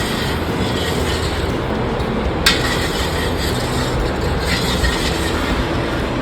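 Steady mechanical rumbling and rattling, with a single sharp click about two and a half seconds in.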